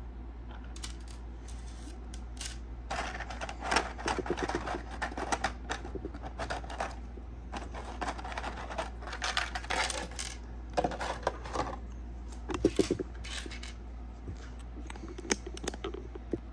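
Small metal action-figure chain clinking and jingling as it is handled and laid on a wooden table, with irregular light clicks of a clear plastic blister tray and small plastic weapon pieces, over a steady low electrical hum.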